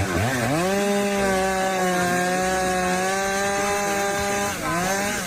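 A power tool's motor spinning up to a steady high speed, then dipping briefly near the end and picking up again, as if it bogs under load.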